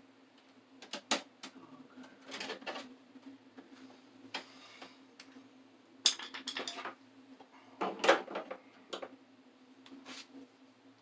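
Metallic clicks, clinks and rattles of hands working wire and tools at an open electrical breaker panel, coming in scattered bunches with the sharpest about one and eight seconds in, over a steady low hum.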